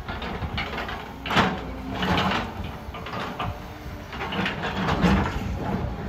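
CAT 316E L hydraulic excavator working: its engine running under load with a wavering whine, and repeated clanks and scrapes as the bucket works in rock and dirt, loudest about one and a half and two seconds in and again near five seconds.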